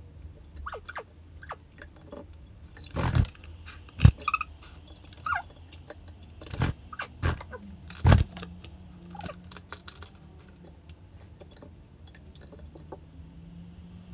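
A rainbow lorikeet hopping about a bowl of water on a wooden floor: a scatter of sharp taps and knocks, a few of them loud, with short squeaky chirps from the bird in between.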